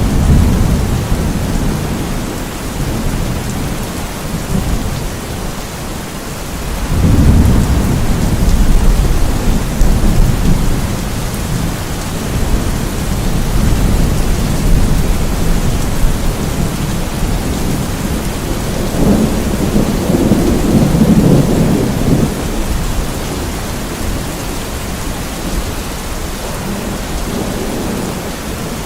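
Steady rain with rolling thunder. One rumble fades over the first few seconds, another breaks in sharply about seven seconds in, and a third swells up around twenty seconds.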